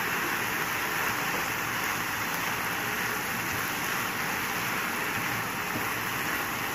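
Shredded cabbage, carrot and ginger sizzling steadily in a nonstick frying pan over the heat while they are stirred with a plastic spatula.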